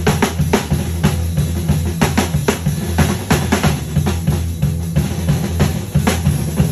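Drum kit played live in a solo: a rapid, dense run of snare and cymbal hits with bass drum, over a steady low tone.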